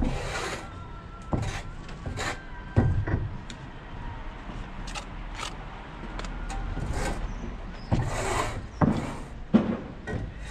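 Stonemasonry work: stones being handled and set, with irregular rough scrapes of stone and a few sharp knocks, the loudest scrapes at the start and about eight seconds in.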